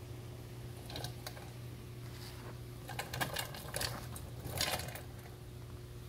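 Handling noise: clusters of short clicks and rustles about a second in, around three seconds in and near four and a half seconds in, over a steady low hum.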